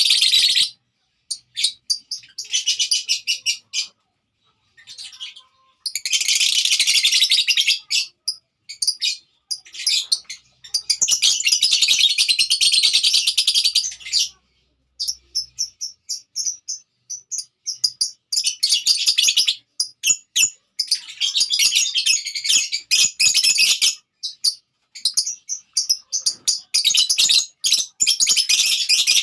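Lovebird chattering: rapid, shrill, high-pitched twittering in bursts of one to four seconds, with short pauses between them.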